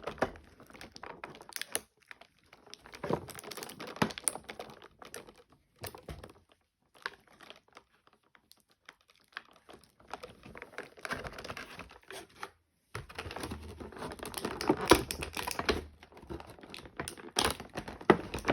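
Plastic packaging crinkling and rustling with small clicks and taps as an action figure and its parts are handled. The sound is irregular and stops for a few seconds near the middle, then rustles more steadily toward the end.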